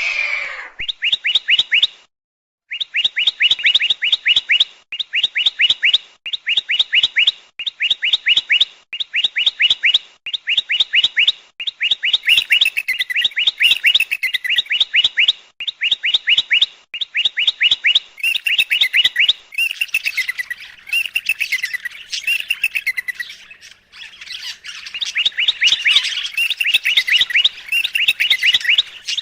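Bird chirping: short trills of quick, high chirps, repeated again and again about once a second, with a busier, overlapping warble in the later part.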